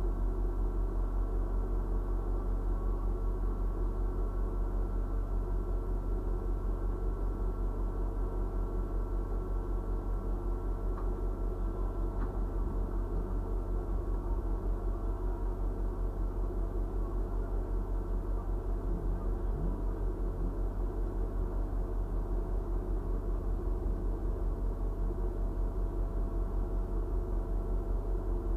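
An engine idling steadily: a low drone with a fast, even pulse and steady tones above it.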